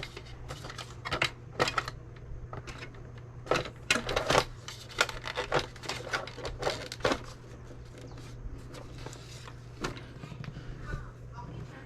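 Irregular clicks and taps of hands handling and fitting the plastic body shell back onto an Arrma Fireteam RC truck, busiest in the first half, over a steady low hum.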